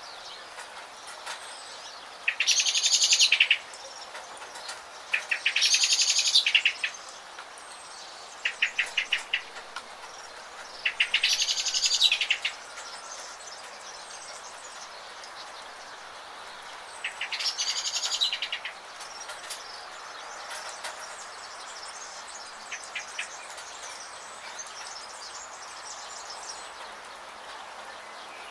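A songbird singing a loud trilled phrase of about a second and a half, four times, with short runs of rapid chips between, over the steady hiss of falling rain.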